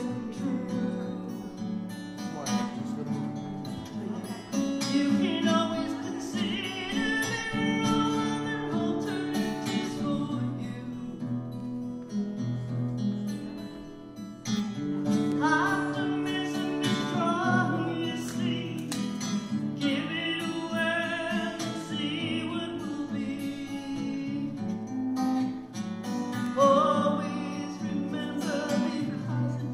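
A woman singing a slow song while strumming an acoustic guitar, sung phrases over steady chords.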